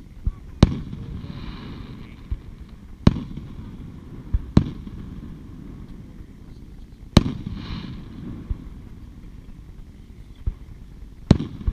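Aerial fireworks shells bursting: about five loud, sharp booms a few seconds apart, with fainter pops in between and a brief hiss after two of them.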